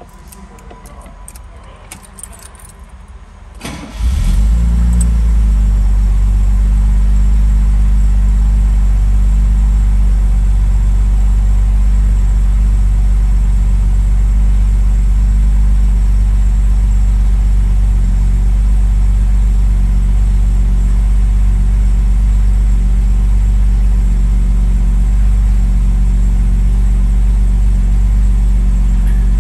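Ignition keys jangling as they go into the lock, then the 1966 Mercedes-Benz 230SL's fuel-injected 2.3-litre straight-six is started from cold, catching about four seconds in and settling into a steady idle.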